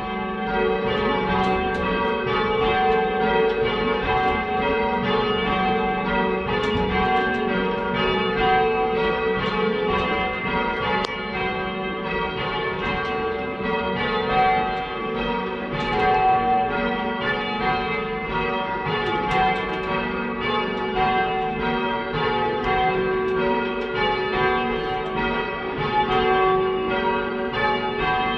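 A ring of three church bells, cast and hung by Taylors of Loughborough in 1925, being rung in a continuous stream of strikes, typical of change ringing.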